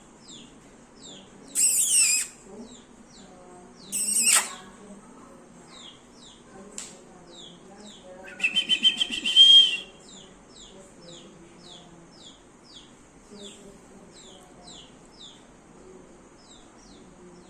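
Pet parrot giving three loud, harsh squawks about 2 s, 4 s and 9 s in, the last a quick rattle that ends in a held note. Behind them a small bird chirps on and on, short falling chirps about twice a second.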